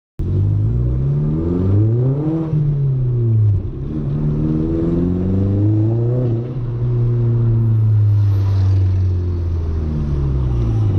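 Audi A3 1.8T's turbocharged four-cylinder engine under acceleration: revs climb, fall back as the gears change, climb again, hold steady for several seconds, then drop near the end.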